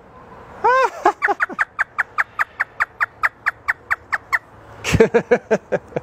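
African grey parrot imitating hysterical laughter. It gives a rising-and-falling hoot, then a rapid, even string of short falling 'ha' notes, about six a second, for some three seconds.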